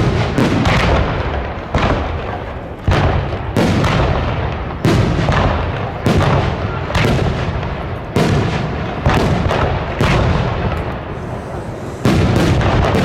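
Aerial fireworks shells bursting in a steady barrage, about one loud bang a second, each trailing off in a rolling rumble.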